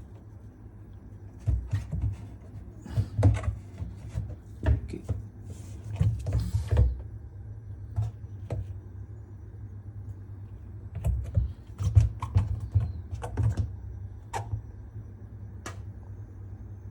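Irregular knocks, taps and rubbing as a washing machine's rubber door seal is worked at and cleaned by hand, in two busy spells, over a steady low hum.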